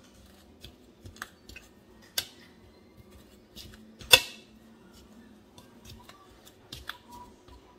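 Metal fork clicking and scraping against a mixing bowl while cutting cold butter into flour for scone dough. The clicks are irregular, with two sharper ones about two and four seconds in.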